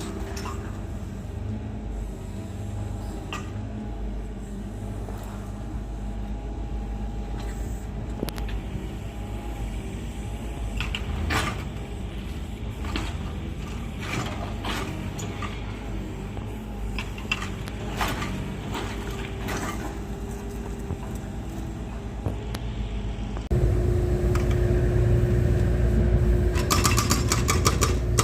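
Excavator's diesel engine running steadily with scattered clanks and knocks, growing markedly louder about three-quarters of the way through.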